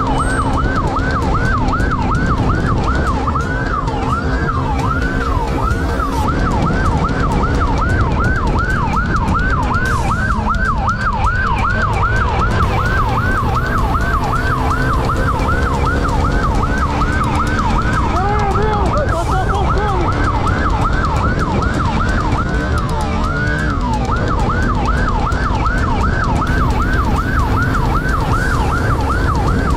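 Police siren wailing in a fast yelp, about three rises and falls a second, switching briefly to slower sweeps twice, over a steady loud rumble of motorcycle engine and wind noise during the chase.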